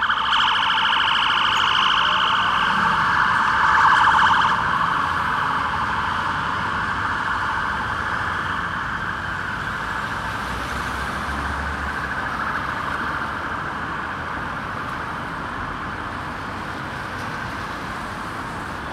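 Volvo fire engines' sirens sounding a fast warbling wail, loud for the first four seconds or so, then fading steadily as the appliances drive away, over low road-traffic rumble.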